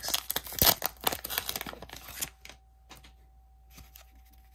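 Freshly opened pack of Garbage Pail Kids sticker cards being handled: the wrapper crinkles and the cards flick and rub against each other in a busy patch for about the first two seconds, then only occasional soft clicks as cards are slid apart.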